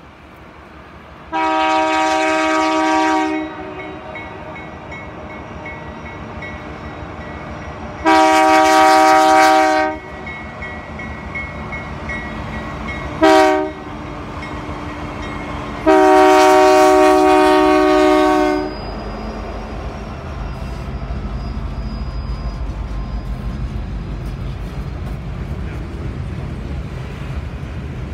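Horn of a CN C44-9W diesel freight locomotive sounding a chord of several notes in the long, long, short, long pattern of the level-crossing signal. After the last blast comes the steady low rumble of the locomotives and freight cars rolling past.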